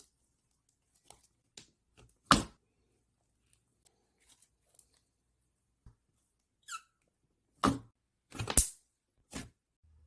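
Slime being squished and worked by hand: irregular short squishes and squeaks, the loudest about two seconds in and a cluster near the end, with one falling squeak just before it.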